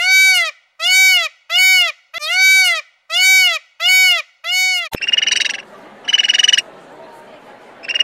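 Indian peafowl calling seven times in a quick series, each call a loud rising-then-falling cry. After a cut about five seconds in come two buzzy, rasping calls, each under a second, from a bottlenose dolphin.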